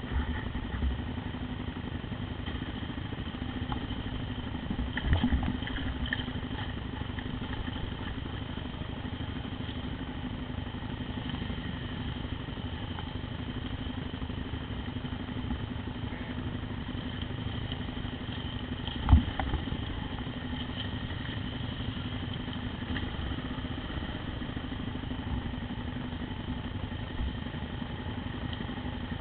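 Motorcycle engines running at a low, steady speed on a rough dirt trail. A sharp knock comes about five seconds in, and a louder thump about nineteen seconds in.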